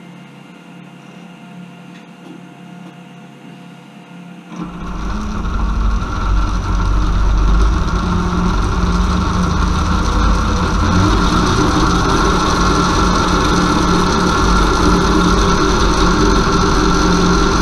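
A converted car alternator, run as a brushless motor by a small 30 A drone ESC, starts about four and a half seconds in and spins up quickly. It then runs steadily, chain-driving a second alternator that serves as a generator load drawing about 30 amps. Before it starts there is only a faint hum.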